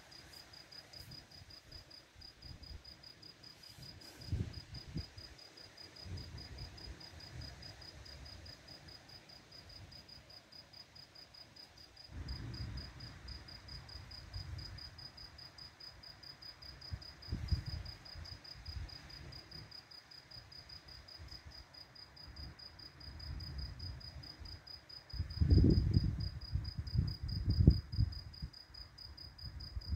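A cricket chirping in a steady, even pulse, with low rumbles that come and go, the loudest near the end.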